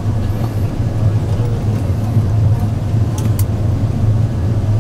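Steady cabin noise inside an Airbus A380 airliner on final approach: loud engine and airflow noise with a strong low hum. Two faint clicks come a little past three seconds in.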